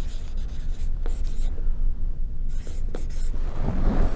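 Felt-tip marker writing on flip-chart paper: short scratchy strokes in two spells with a pause between, over a steady low hum.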